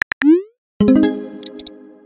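Texting-app sound effects. A last keyboard tap or two, then a short rising whoop as the message is sent. About a second in, a bright chime sounds and slowly fades away.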